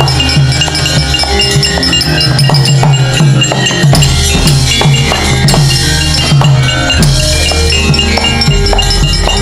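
Javanese gamelan ensemble playing a brisk wayang kulit accompaniment: sustained metallic tones over a steady run of drum strokes and sharp metallic clinks.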